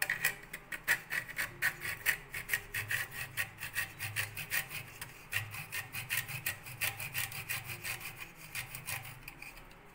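Cashew nuts being rubbed back and forth across a small stainless steel hand grater: a quick, even rasping scrape, stroke after stroke, easing off near the end.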